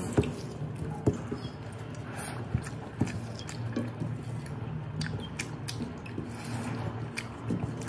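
Close-up eating sounds: chewing, and fingers squishing and mixing rice with pork and jackfruit on a metal plate, with a few sharp clicks. A steady low hum runs underneath.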